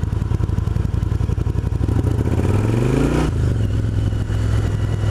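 Yamaha BT1100 Bulldog's air-cooled V-twin running through IXIL aftermarket silencers at low speed, with an uneven, pulsing throb. About two seconds in the revs rise under throttle, then drop abruptly just after three seconds and settle back to a steady run. The exhaust is loud enough that it helps surrounding traffic hear the bike coming.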